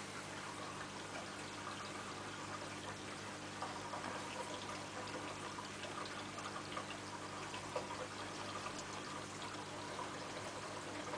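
Aquarium water trickling and splashing steadily over a low, even motor hum from the tank's filter or pump, with small scattered drip-like ticks.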